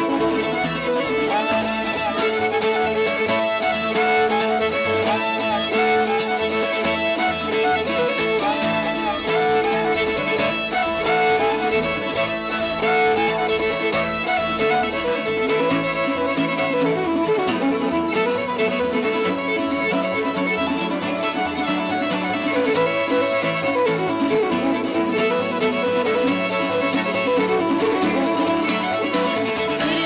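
Fiddle playing the melody of an Americana folk tune, backed by acoustic guitar and upright bass, with no singing.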